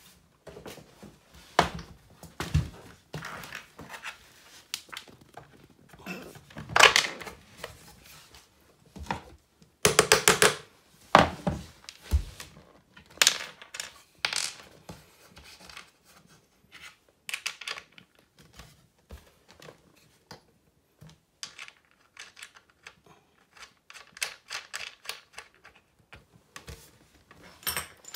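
Hands working the wooden drafting table frame and its bolt hardware: scattered knocks, taps and clicks of wood and metal as a carriage bolt is fitted and a washer and nut are put on. The loudest taps come in a cluster about ten seconds in, and a run of quick clicks comes near the end.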